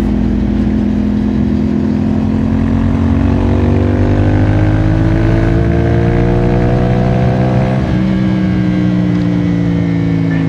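CFMOTO 450SR-S motorcycle's 449 cc parallel-twin engine pulling under acceleration, its pitch climbing steadily for several seconds. About eight seconds in the revs drop suddenly, as on a shift up a gear, and it pulls on at the lower pitch.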